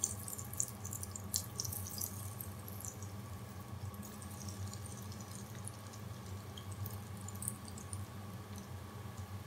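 Breaded chicken pieces deep-frying in hot oil, sizzling with a dense crackle and a few sharp pops in the first second and a half, then thinning to scattered crackles. A steady low hum runs underneath.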